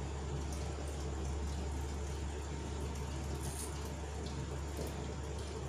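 A steady low hum runs throughout, with faint short squeaks and scratches of a marker writing numbers on a whiteboard.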